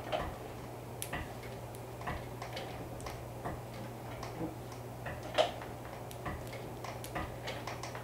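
Industrial single-needle sewing machine being turned slowly by its handwheel to top-stitch a curve. The needle and mechanism give a short click about once a second, over a steady low hum.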